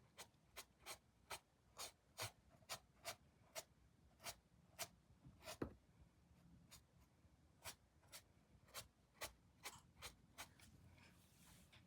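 Faint, quick taps of a paintbrush dabbing paint onto a rough, rock-textured canvas, a string of separate strokes about two a second. There is a short soft rub near the end.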